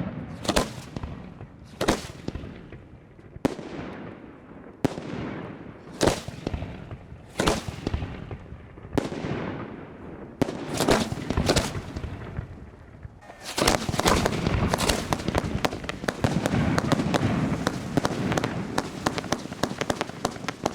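1.3G display fireworks bursting, one sharp bang about every second and a half, each trailing off in a fading crackle. About 13 seconds in, the firing becomes a dense, continuous barrage of rapid bangs and crackles.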